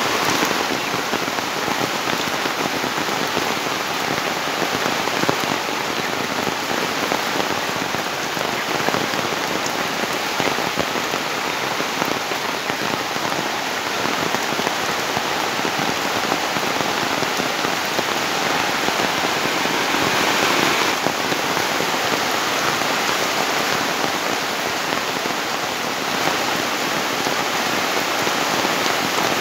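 Heavy rain pouring down steadily, a dense even hiss of drops striking surfaces.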